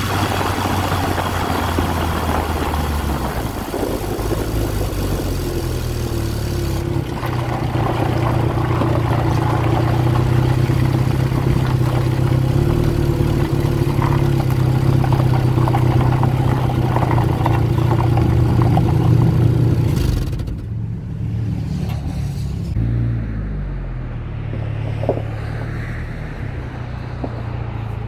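Vehicle engine and tyre noise heard from under the body while driving: road and wind noise at first, then the engine running steadily over gravel. About 20 seconds in it slows, the engine note falls, and it settles to idling, with one sharp click a few seconds later.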